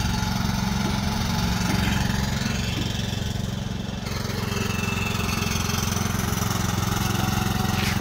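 Riding lawn tractor's small engine running steadily as it drives up.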